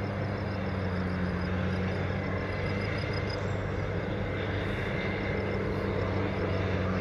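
Airbus A350-900's Rolls-Royce Trent XWB jet engines running, a steady rumble with a low hum.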